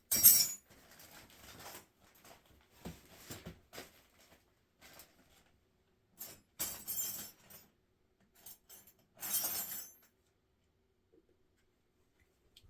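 Metal wrenches clinking and clattering in bursts as they are picked through and handled, the loudest clatter at the very start and the last about ten seconds in.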